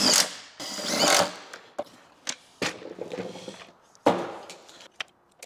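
Cordless driver running a screw home, stopping just after the start, then a second short run about a second in as a twist-lock inlet is fastened to a steel electrical panel. Then several clatters and knocks of the metal panel and tools being handled, the loudest about four seconds in.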